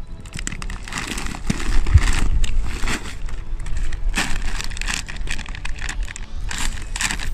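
Plastic packaging crinkling and rustling in irregular bursts as a large sack of dry dog food is pulled out of its plastic wrapping and handled, over a low rumble.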